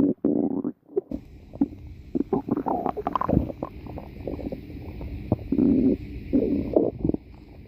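Stomach growling and gurgling in a run of irregular bursts, with a short break just before a second in and the loudest growls toward the end.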